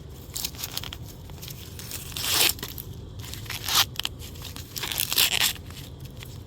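Husks being torn and peeled back from a freshly picked ear of corn: a run of crackling rips, the loudest about two, four and five seconds in.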